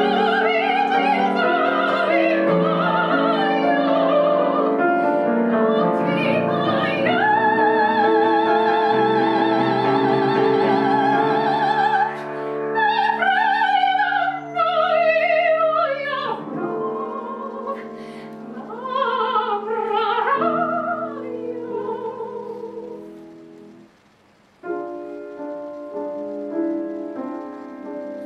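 A woman singing in classical operatic style with vibrato, accompanied by a grand piano. The voice stops about three-quarters of the way through, and after a brief pause the piano plays on alone.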